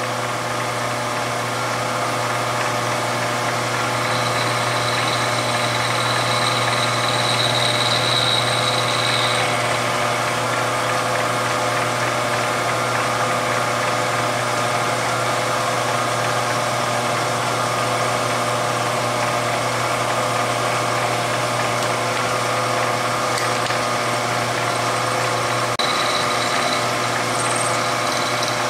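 Milling machine spindle running steadily while a spiral cutter machines the face of a stainless steel Smith & Wesson Model 686 revolver cylinder, recessing it for full moon clips. A thin high whine comes in from about four to nine seconds in and again briefly near the end.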